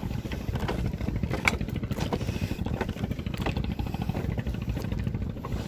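Footsteps knocking and creaking on a bamboo-slat walkway, a few separate knocks, over a steady low rumble.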